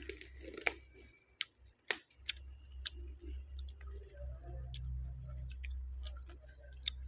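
Eating sounds: chewing with scattered sharp clicks of cutlery against a plate, over a low steady hum.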